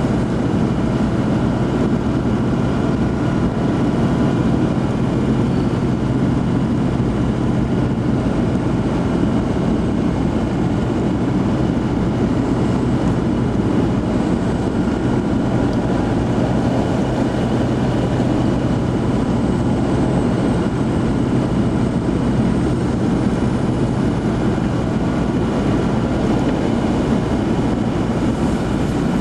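A car's engine and its tyres rolling on a snow-covered road, heard from inside the cabin as a steady low hum and road noise that holds even throughout.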